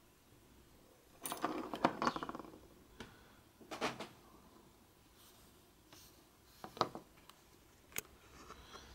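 Light handling noises of a hand moving over a plastic cutting mat: a longer rustle about a second in, shorter brushes and taps later on, and a sharp click near the end.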